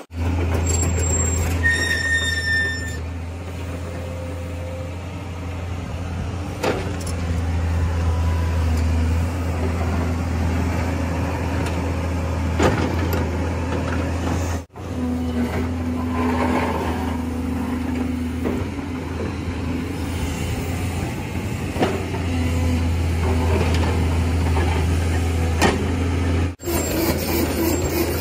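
Engine sound of an RC construction machine running steadily as a low drone, with a short high-pitched tone about two seconds in. The sound cuts out abruptly twice, about halfway through and near the end.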